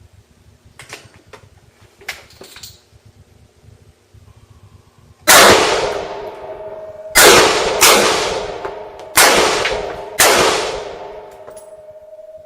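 Five shots from an AR-15 rifle fired at an uneven pace over about five seconds, each report ringing out and echoing away over a second or more. A few faint clicks come before the first shot.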